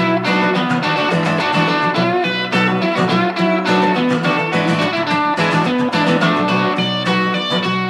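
Guitars playing an instrumental break of a lo-fi rock-and-roll song, with no singing, recorded on tape.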